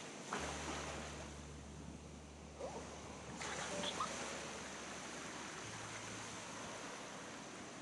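Ocean surf washing onto the beach: a steady hiss of waves that swells a few seconds in.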